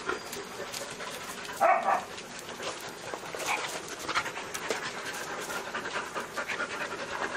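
Several dogs panting close by, with scattered short ticks and scuffs. About a second and a half in comes one brief loud sound, the loudest moment.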